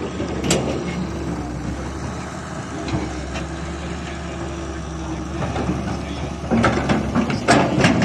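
Diesel engine of a Hitachi wheeled excavator running steadily, with sharp knocks and clatter building near the end.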